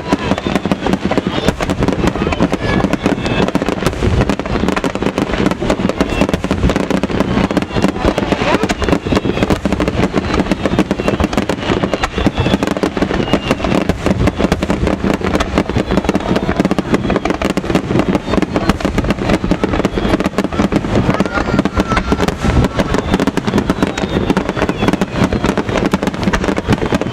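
Fireworks going off in a dense, unbroken barrage of bursts and crackles: a grand finale.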